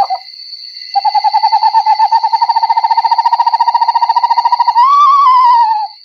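Recorded eastern screech owl calls. The tail of a descending whinny comes first, then a long monotone trill of rapid, even notes lasting nearly four seconds, then another whinny near the end that rises and falls away. A thin, steady high tone sounds behind the calls.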